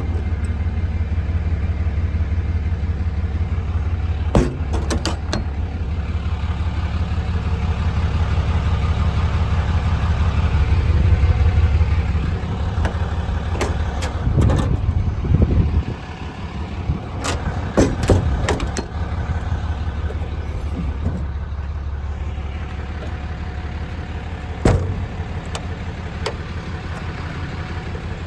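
An engine running steadily at idle, louder for a while and then settling lower. Several sharp clicks and knocks are scattered over it.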